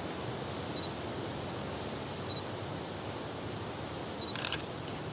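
Steady outdoor background hiss, with a brief crackle of clicks about four and a half seconds in.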